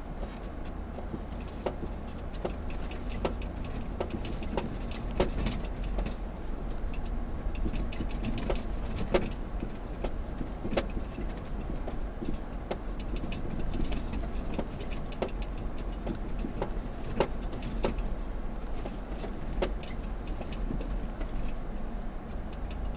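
Lexus GX460 SUV driving slowly over bumpy, debris-strewn beach sand, heard from inside the cabin: a steady low rumble with frequent irregular clicks and rattles, and one sharper knock near the end.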